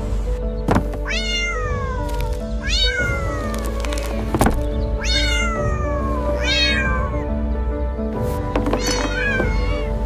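Kitten meowing over and over, about six high calls that each slide down in pitch, over steady background music. A couple of sharp knocks fall among the calls.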